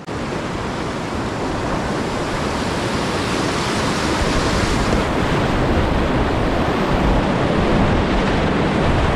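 Whitewater rapid rushing steadily and growing a little louder, with wind buffeting the microphone.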